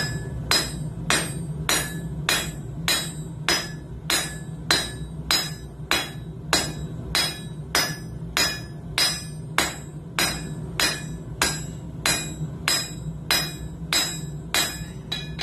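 Hammer blows on hot coil-spring steel against an anvil, a steady rhythm of about two strikes a second, each ringing briefly, as a wolf jaw tong blank is forged half on, half off the anvil edge. A steady low hum runs underneath.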